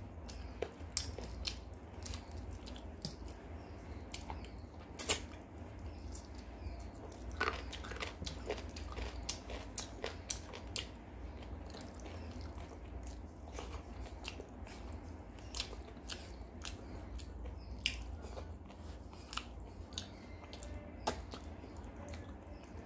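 Close-up eating by hand: chewing with frequent short wet mouth clicks and smacks at irregular intervals, and fingers squishing rice and chicken curry on a steel plate while pulling meat from chicken bones. A steady low hum runs underneath.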